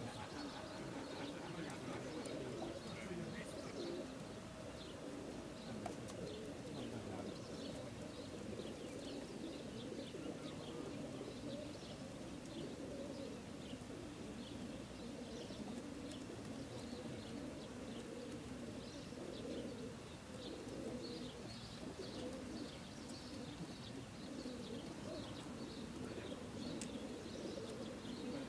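A large crowd of racing pigeons crated in a transporter truck, cooing together in a continuous low murmur, with many short high chirps scattered over it.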